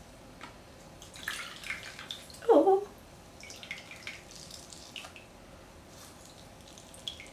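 A makeup sponge being dipped and squeezed in a bowl of water, with small splashing and dripping sounds, soaking it through. About two and a half seconds in there is one brief, loud, falling squeak.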